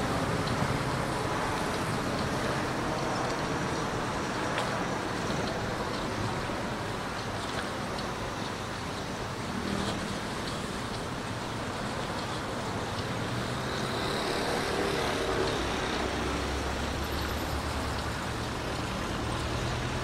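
Steady city road traffic noise, with engines of passing vehicles swelling in the second half, mixed with the wash of choppy sea water against a stone quay wall.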